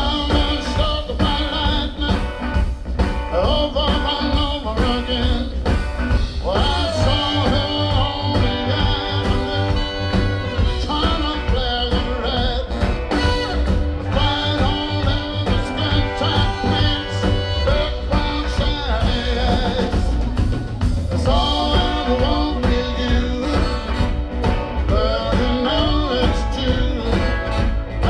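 Live blues-rock band with a horn section playing a song: electric guitars, saxophone, trumpet, bass and drums over a steady beat, with heavy bass.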